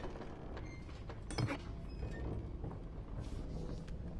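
Small objects handled on a wooden table: a few light clicks and knocks, one stronger knock about a second and a half in, over a steady low rumble of room tone.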